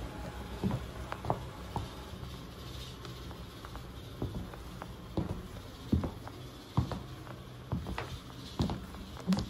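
Footsteps of Casadei Blade stiletto pumps with thin metal heels, each heel strike a sharp click on a wooden floor, at a walking pace.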